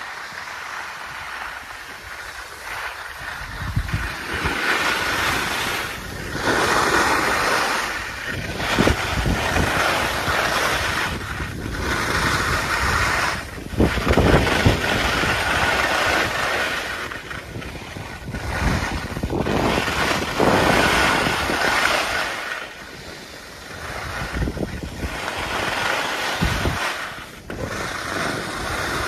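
Wind rushing over the microphone of a skier's handheld camera, mixed with skis scraping and carving on hard-packed groomed snow. The noise swells and fades every second or two with the turns.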